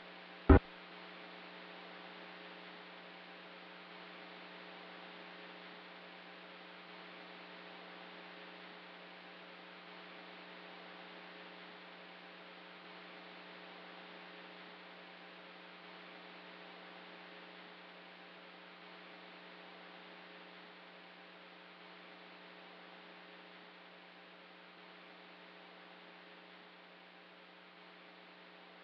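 Faint, steady hum made of several held tones over a soft hiss, like electrical mains hum on an old recording. A short sharp blip comes about half a second in.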